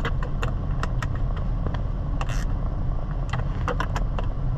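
Ford Super Duty pickup's engine idling steadily, over a run of sharp plastic clicks and a couple of short scrapes as steering-column trim is fitted back together.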